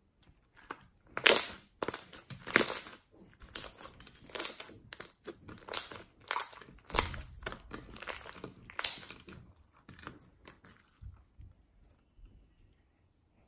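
Fluffy slime being squeezed and pressed by hand, giving irregular squishes and pops that die down near the end.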